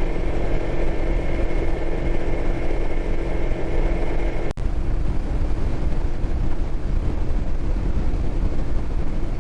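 Boat motor running steadily at speed, its engine hum under a broad rush of wind and water; the sound breaks off for an instant about four and a half seconds in, and the hum is weaker after that.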